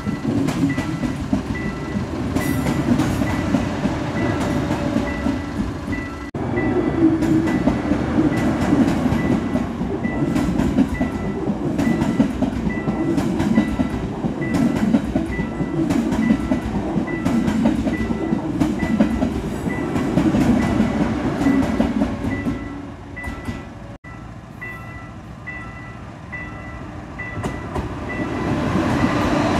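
KTX-Sancheon high-speed train passing, its wheels rumbling steadily on the rails, while a level-crossing warning bell rings in even strokes about twice a second. The rumble drops away about three quarters through, and near the end a second KTX train approaches and grows louder.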